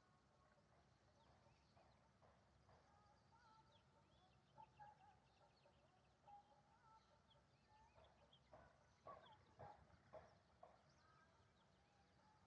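Faint bird calls and chirps over quiet outdoor ambience, with a cluster of a few short, louder calls about eight to eleven seconds in.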